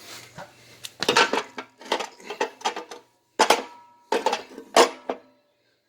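Small metal parts and tools clinking and clattering as they are handled, a run of sharp knocks, some followed by a brief metallic ring.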